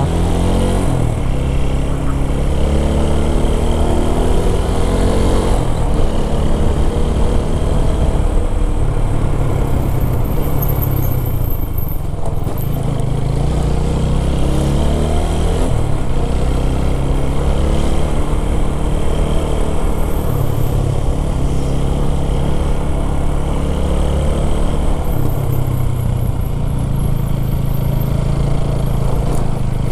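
Motorcycle engine running as the bike rides at about 20 to 30 km/h, its pitch rising and falling several times with the throttle.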